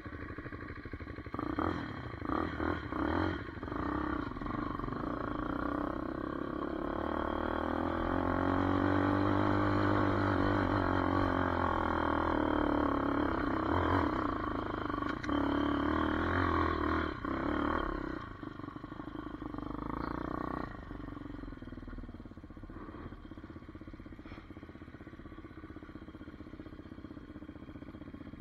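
Hawk 250 DLX dirt bike's single-cylinder engine, heard from on the bike: a few quick throttle blips, then a long loud pull under load up a climb with the pitch rising and falling, easing to a quieter run about 18 seconds in. The rider says it was bogging down on the stock gearing.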